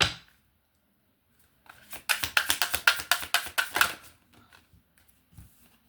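Tarot cards being shuffled: a quick run of papery flicks lasting about two seconds, after a single sharp tap at the start.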